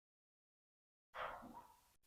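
Dead silence, then about a second in a brief handling noise that fades within about half a second, from the rope and chain being worked by hand.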